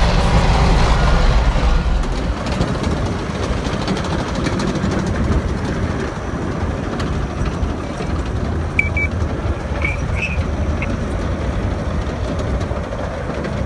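Vehicles driving through deep floodwater: a steady low rumble of engines and water, heavier for the first two seconds.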